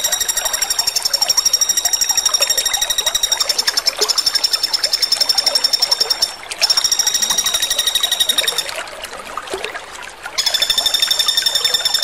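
Common flameback woodpecker (pelatuk bawang) giving long, rapid, high-pitched rattling trills. The trill breaks off briefly about six and a half seconds in and for about a second and a half near nine seconds, then resumes.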